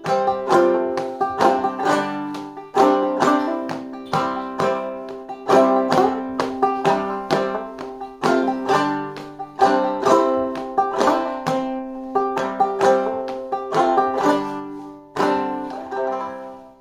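Clawhammer banjo playing the tune's closing bars as an instrumental, a steady run of plucked, ringing notes. The last chord is struck near the end and left to ring out and fade.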